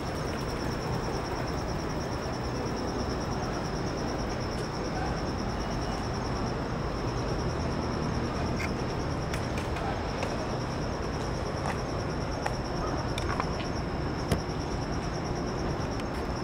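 Crickets chirping in a steady, pulsing high-pitched trill over a constant low background hum, with a few sharp clicks in the second half.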